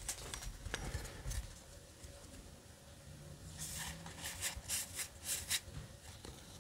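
Faint rustle and light clicks of a stack of trading cards being slid one behind another in the hands, with a run of short, soft swishes in the second half.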